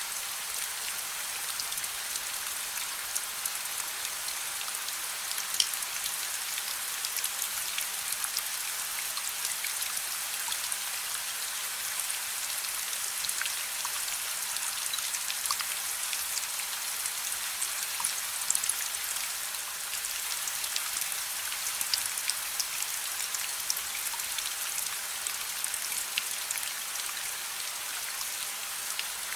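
Steady rain with scattered sharp crackles and pops from a wood fire in a fireplace mixed in.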